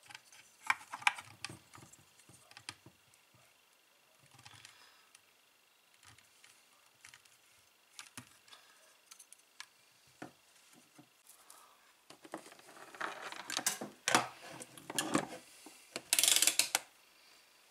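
Hands handling the power inverter's cables, terminal parts and small metal pieces on a wooden table: scattered clicks, taps and light clatter. The handling gets busier late on, and the loudest burst of noise comes near the end.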